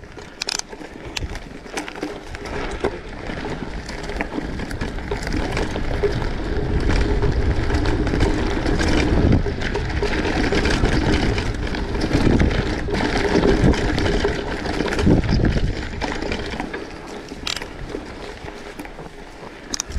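Wind buffeting the microphone during a ride, with scattered clicks and rattles; it swells through the middle and eases off near the end.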